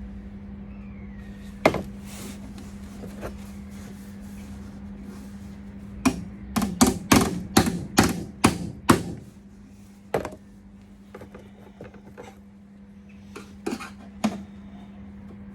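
Hammer blows on the sheet-steel body panel being fitted: one knock, then a quick run of about eight sharp blows, and a few more spaced out near the end. A steady low hum runs underneath.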